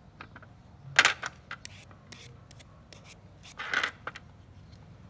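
Small kitchen knife peeling a raw potato by hand: sharp scrapes of the blade through the skin, the loudest about a second in and another near four seconds, with light clicks and ticks between.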